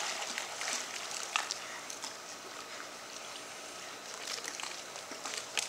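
Swimming-pool water sloshing and lapping as two people move about in it, with small splashes and drips.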